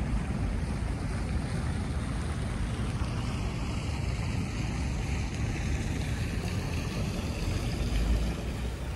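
Wind buffeting the microphone outdoors: a steady low rumbling noise with a hiss above it, swelling with a stronger gust about eight seconds in.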